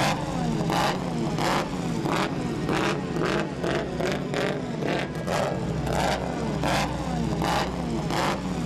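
Background music with a steady beat, about four beats every three seconds, over the straight-eight engine of a Mercedes-Benz W25 race car running as the car moves off slowly.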